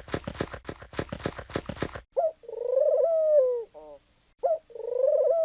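A quick run of short, sharp pulses, about six a second, for the first two seconds, then a pigeon cooing: two long rising-and-falling coos, each trailed by a few short notes.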